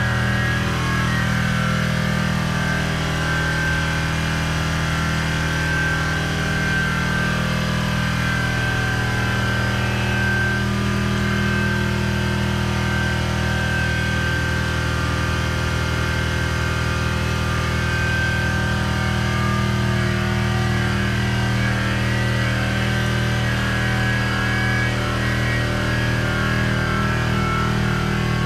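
Air compressor running steadily, a constant motor hum with a high whine, feeding a paint spray gun.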